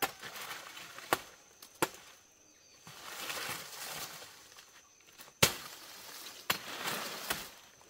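Machete hacking into the stalk of a felled plantain plant: about six sharp chops, the loudest about five and a half seconds in. Dry banana leaves rustle between the blows.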